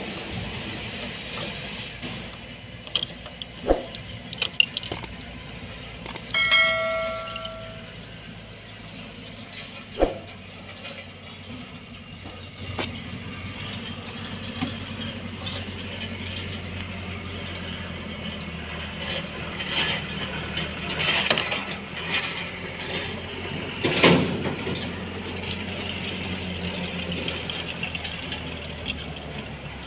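Scattered metal clinks and knocks of a chain-type filter wrench and tools working on a diesel fuel filter bowl, over a steady low hum. A brief high squeal comes about six seconds in.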